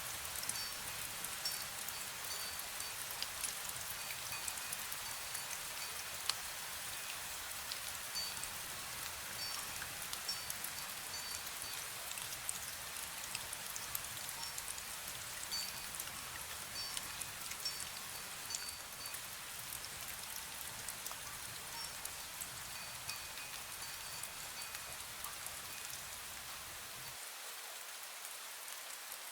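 Steady fine rain pattering, with the faint, brief high tinkles of a wind chime ringing now and then.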